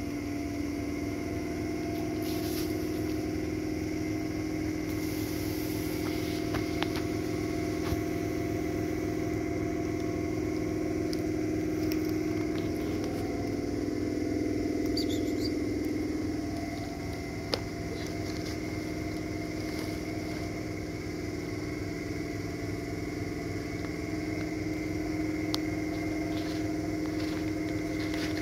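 A machine running with a steady drone made of a few fixed tones, dipping slightly about two-thirds of the way through, with a few faint clicks over it.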